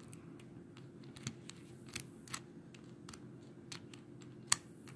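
Small plastic clicks and taps from a toy crash-test-dummy action figure and its pop-off parts being handled, irregular, with one sharper click near the end.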